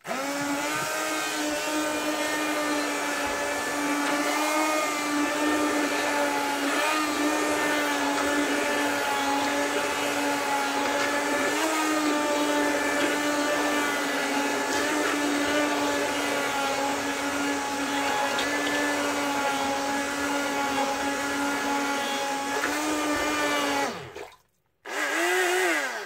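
Handheld emulsifier (immersion blender) mixing plaster of Paris and water in a bucket, its motor running with a steady high whine. Near the end it winds down and stops, then is run again briefly and cut off.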